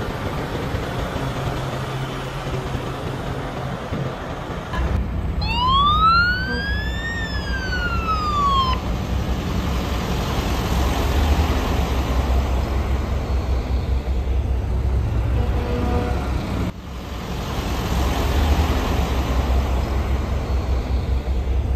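Heavy truck diesel engines rumbling low and steady. About five seconds in, a siren gives one wail, rising for about two seconds and then falling away. The sound changes abruptly about five seconds in and again near seventeen seconds.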